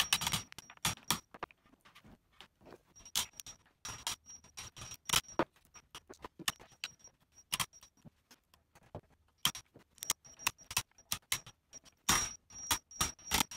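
Claw hammer striking the handle of a wood chisel in runs of quick, irregular taps, chopping the rounded corners of a hole left by a round bit square to fit a post.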